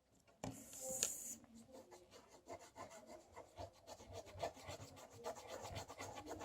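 A paintbrush rubbing and scrubbing on paper in quick, irregular strokes, with one louder hissing stroke about half a second in.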